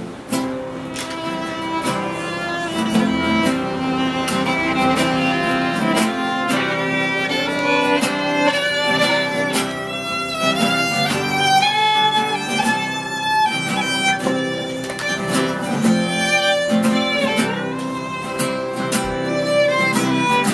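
Fiddle playing the lead melody in an instrumental bluegrass break, over two acoustic guitars strumming the rhythm.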